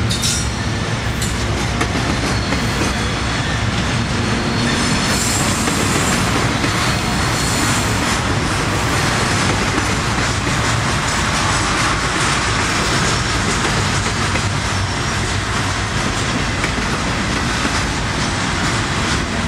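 Steel wheels of a freight train's double-stack container well cars rolling past on the rails, a steady unbroken running noise.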